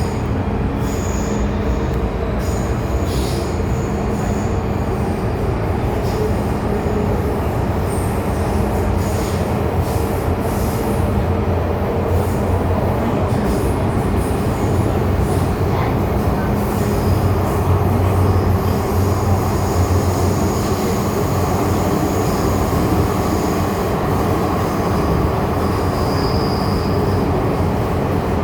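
MTR M-Train metro car running, heard from inside the car: a steady rumble of wheels on rail and running gear. High-pitched wheel squeal comes and goes over it, notably near the start and again in the last third.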